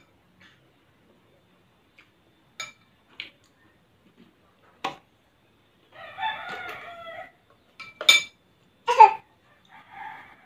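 A rooster crows in the background, one call of a little over a second about six seconds in, among sharp clinks of metal spoons against a ceramic soup bowl and knocks from handling a plastic water bottle, the loudest near the end.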